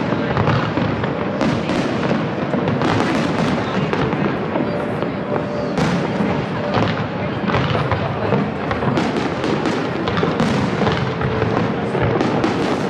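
Aerial fireworks bursting in quick succession: a continuous run of bangs and crackles.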